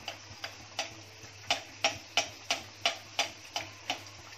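Sharp, even clicking, about three clicks a second, over a low steady hum.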